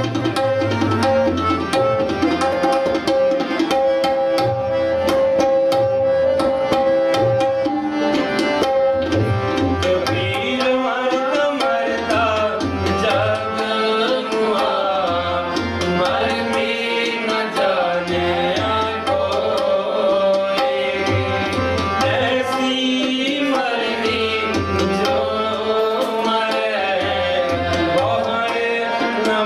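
Sikh kirtan: harmonium holding steady reedy chords and melody over a running tabla rhythm. From about ten seconds in, a man's voice sings along in sliding, ornamented lines.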